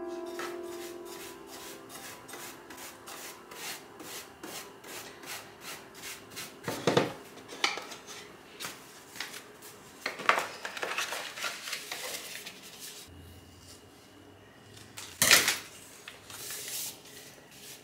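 Quick repeated scraping and rubbing strokes inside a wooden drawer, about three or four a second, then irregular knocks and rustles as the drawer is handled and a paper liner is laid in. The loudest knock comes about three-quarters of the way in.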